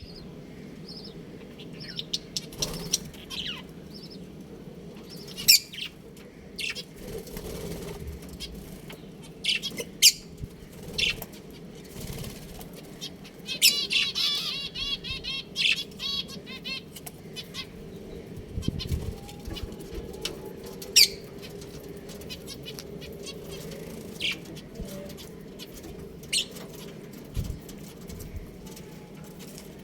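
Budgerigars chirping: scattered short, sharp chirps, with a longer run of warbling chatter about fourteen seconds in.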